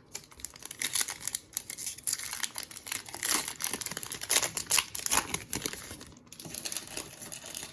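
Foil wrapper of a Panini Mosaic basketball card pack crinkling and tearing as it is ripped open by hand, a busy run of irregular crackles that thins out near the end.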